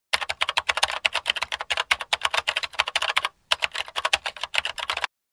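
Fast typing on a computer keyboard: a quick run of key clicks, a short pause a little past three seconds in, then more typing that stops abruptly near the end.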